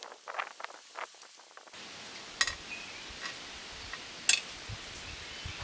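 Parts of an old camelback drill press being handled while a piece is taken off: light scraping and small clicks for the first second and a half, then two sharp clinks about two seconds apart.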